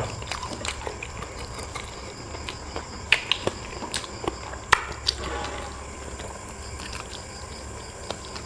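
Close-up eating sounds: wet chewing with sharp lip-smacking and sucking clicks, irregular and scattered, typical of eating chicken feet.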